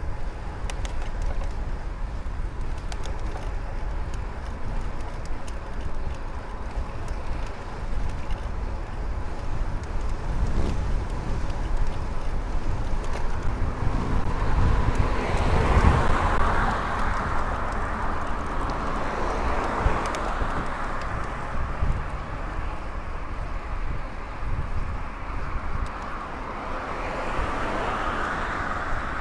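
Wind rumbling on the microphone of a moving bicycle, with road traffic noise. A motor vehicle passes about halfway through, swelling to the loudest point and fading, and another vehicle approaches near the end.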